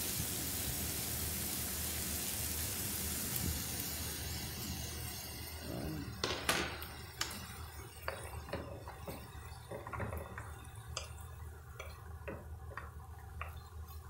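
Sheep liver and onions frying in a pan, a strong sizzle that fades over the first few seconds. Then a wooden spatula stirring and knocking against the pan in a string of sharp taps over a fainter sizzle.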